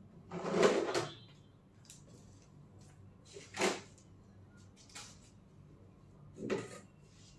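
A few scattered knocks and bumps of household handling, like a door or cupboard being moved, over faint room noise. The loudest comes about half a second in, with three smaller ones later.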